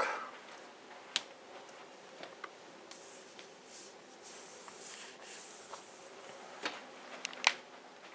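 Faint handling noises over quiet room tone: a few light clicks and knocks, the loudest about seven and a half seconds in, with a soft rustle in between.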